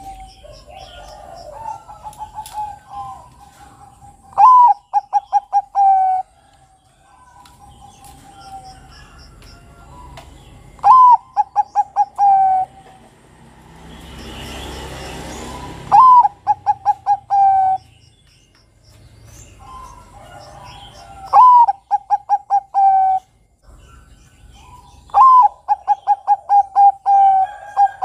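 Perkutut Bangkok (zebra dove) singing its song five times. Each phrase is a rising first note followed by a quick run of short staccato coos, about two seconds long. Fainter cooing and small high chirps of other birds fall between the phrases.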